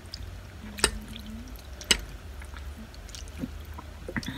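A metal fork clinks sharply twice against a ceramic plate, about one and two seconds in, while noodles are twirled up. Near the end come softer wet sounds of noodles being slurped and eaten, over a steady low hum.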